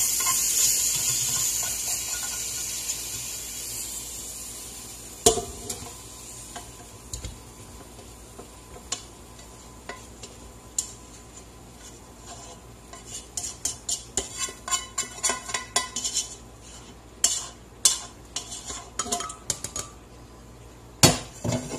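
A hot pan's sizzle dying away over the first few seconds. Then a utensil scrapes and clinks against the metal pan and the glass blender jar as roasted tomatoes and chiles are tipped in, with a flurry of small clicks in the second half and a couple of sharp knocks near the end.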